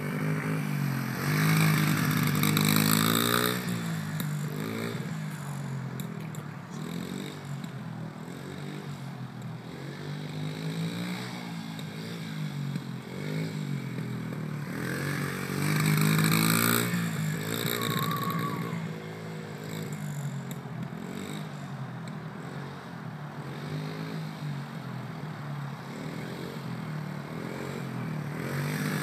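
Honda CRF70 dirt bike's small single-cylinder four-stroke engine running under a novice rider's throttle, its pitch rising and falling continually. It swells louder twice, about two seconds in and again just past halfway.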